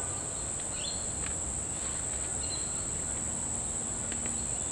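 Steady high-pitched insect trill, unbroken on one tone, with a couple of faint clicks.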